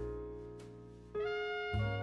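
Jazz background music with long held notes: a chord fades over the first second, a new chord enters just after a second in, and a low bass note joins near the end.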